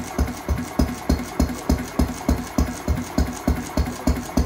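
1943 Ronaldson Bros. & Tippett Type N 3 hp vertical petrol stationary engine running steadily, its exhaust beating evenly about three times a second.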